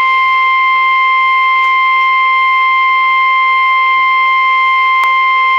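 NOAA Weather Radio's 1050 Hz warning alarm tone: a single loud, steady, high-pitched tone held without a break. It is the signal that a warning broadcast follows.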